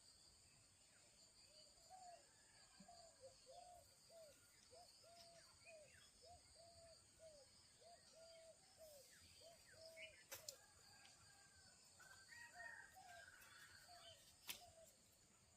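Faint rural outdoor ambience: a steady high insect drone, with a bird calling a run of short, evenly spaced notes, about one and a half a second, for several seconds. Two sharp clicks, one about two-thirds of the way in and one near the end.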